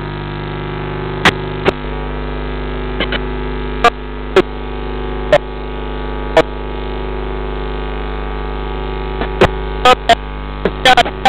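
Steady electrical mains hum in the broadcast audio, a stack of low buzzing tones, broken by irregular sharp clicks every second or so and more often near the end.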